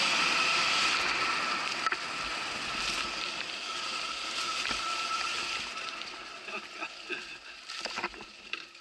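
Electric enduro motorcycle riding, its motor giving a steady high whine over tyre and wind noise. The sound dies down over the last few seconds as the bike slows, with a few light knocks near the end.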